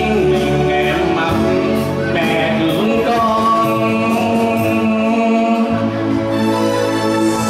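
A man singing into a microphone over backing music, amplified through the hall's sound system, with long held notes.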